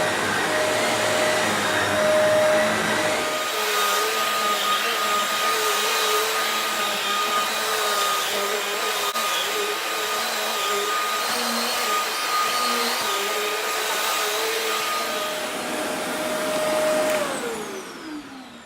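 Shark Navigator Lift-Away NV360 upright vacuum cleaner running steadily. Its pitch shifts about three seconds in and shifts back near fifteen seconds. Near the end it is switched off and the motor winds down in a falling whine.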